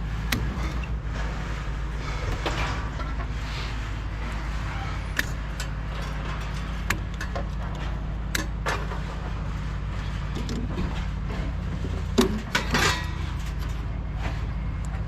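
Scrap metal clinking and clanking as it is handled and unloaded, in scattered knocks over a steady low hum, with a louder clatter near the end.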